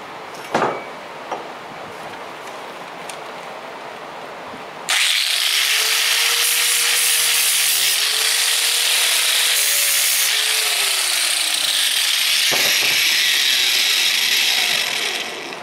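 A knock about half a second in, then a handheld angle grinder starts at about five seconds and runs for about ten seconds, abrading the surfaces of steel parts to clean them. Its loud hiss carries a motor whine that wavers and sags, and it winds down near the end.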